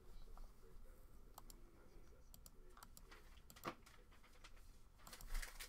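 Faint computer keyboard typing: scattered single key clicks, then a quick run of keystrokes near the end.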